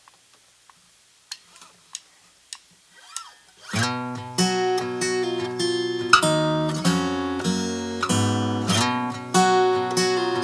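A few faint clicks, then acoustic guitar chords strummed from about four seconds in, ringing out between strokes.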